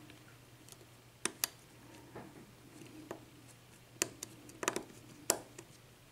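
Lock pick and tension wrench working inside a 6-pin pin-tumbler padlock under light tension: scattered, light metallic clicks and taps as the pick probes the pins.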